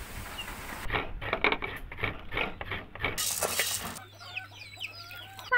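Chickens clucking and chicks peeping through the last second and a half. Before that comes a run of irregular soft knocks and clicks, then a brief rushing hiss.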